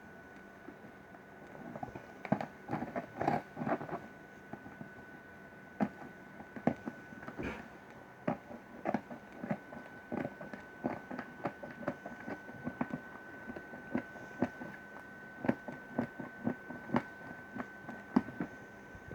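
Packaging being handled and opened by hand: irregular rustles, crinkles and light knocks, over a faint steady high-pitched tone.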